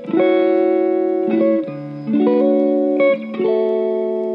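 Background music with plucked guitar chords that change about once a second.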